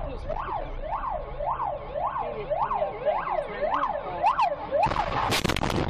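Emergency-vehicle siren wailing rapidly up and down, nearly two sweeps a second. Near the end a sudden loud crash of crunching noise drowns it out.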